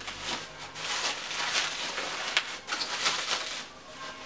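Plastic wrapping crinkling and rustling in irregular bursts as it is handled and pulled off wrapped doll parts, easing off briefly near the end.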